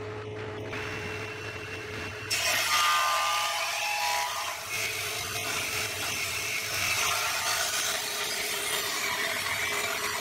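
Table saw blade spinning free with a steady hum, then about two seconds in it bites into a thick hardwood block and rips along its length. The cutting noise is much louder than the hum and holds steady while the block is fed through.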